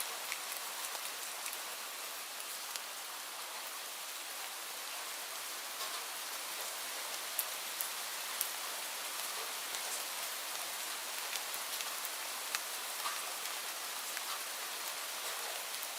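Light rain falling steadily, an even hiss with scattered individual drops ticking sharply on a surface.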